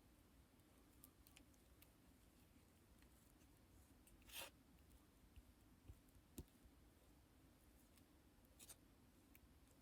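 Faint handling sounds of creamy lipstick: one brief soft scrape about halfway through and a few light sticky clicks later on, with near silence in between.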